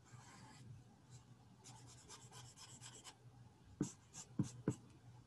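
Felt-tip marker scratching on paper in rapid back-and-forth colouring strokes. Four sharp knocks come in quick succession near the end and are the loudest sounds.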